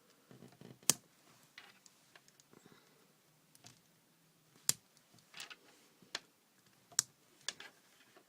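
Small plastic pieces being handled and clicked together: several sharp clicks, the loudest about a second in, near the middle and near the end, with light rattling and scraping between them.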